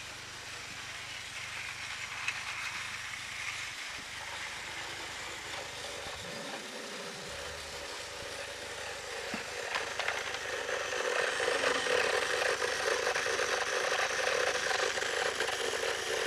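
Battery-powered motorized toy train running on plastic track: a steady motor whir with fast rattling of wheels and gearing, growing louder about ten seconds in.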